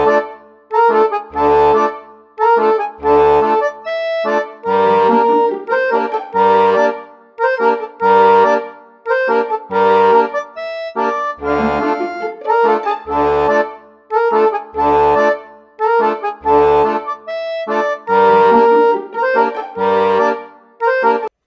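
Background music with a steady beat: held chords over a deep bass note about every second and a half, stopping just before the end.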